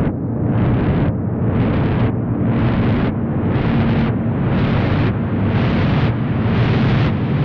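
Riser sound effect: a swell of noise with a heavy low end that pulses about once a second, each pulse sweeping up and climbing a little higher than the last, building tension toward a drop.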